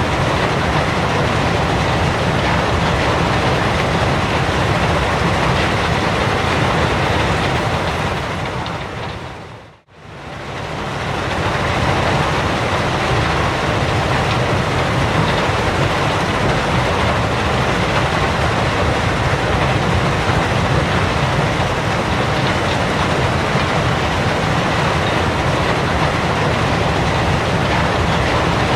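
Gravel pit ambience: a dense, steady mechanical rumble and rattle with a faint steady whine in it. It fades out to silence a little under ten seconds in, then fades straight back in.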